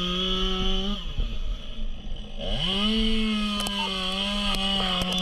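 Two-stroke power saw running at high revs. It falls off about a second in, then revs back up near the middle and holds steady, as firefighters cut a ventilation hole in the roof.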